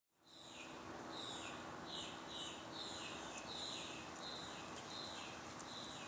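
A bird singing a series of short, down-slurred whistled notes, about two a second, over steady outdoor background noise.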